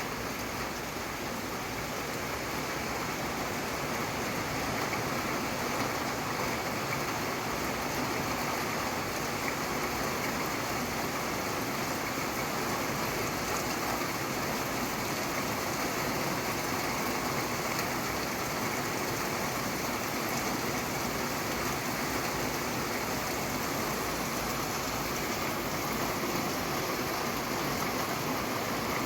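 Steady rain falling: an even, unbroken hiss that builds slightly over the first few seconds, then holds.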